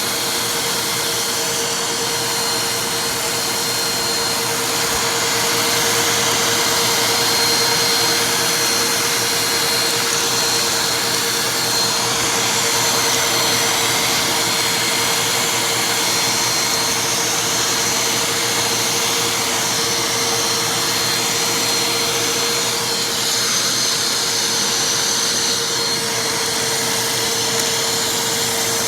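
Vacuum cleaner running steadily, its motor holding one even tone under a loud rushing of air.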